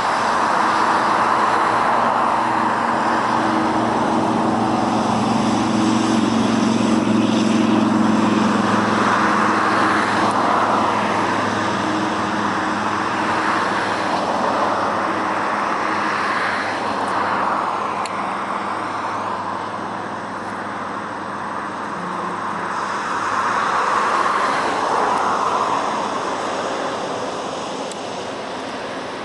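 Jet engines of a Boeing 787 airliner running at taxi power as it taxis past, a steady engine noise with a low hum. The noise gradually eases as the aircraft moves away and swells briefly near the end as it turns.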